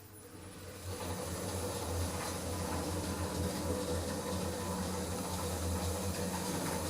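Early Otis Gen2 passenger lift travelling between floors: a steady low hum with a faint hiss from the moving car, which starts about a second in.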